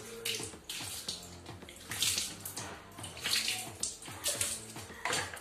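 Water poured from a mug over a Labrador during a bath, splashing onto the dog and the floor in several short bursts.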